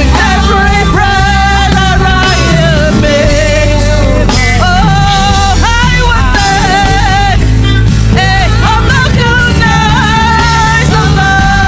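Live gospel praise-and-worship music: a band with heavy bass and drums, under a high melody line that wavers and bends in pitch.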